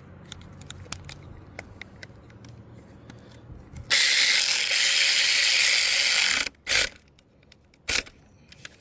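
Hand socket ratchet wrench cranked quickly, its pawl clicking in a loud, dense run for about two and a half seconds, then two short bursts of clicks, with faint tool clicks before.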